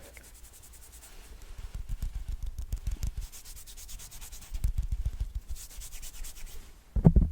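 Art tools rubbed against the microphone in short, irregular scratchy strokes, close-up ASMR makeup role-play brushing. Louder muffled bumps come near the end.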